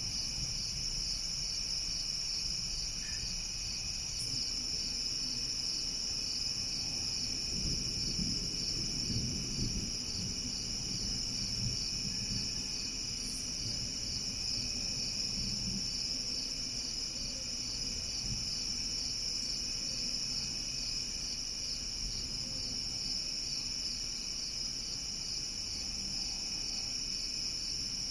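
Steady chorus of crickets trilling in several high, unbroken bands. Under it, a low rumble of distant thunder swells from about seven seconds in and fades out by about sixteen seconds.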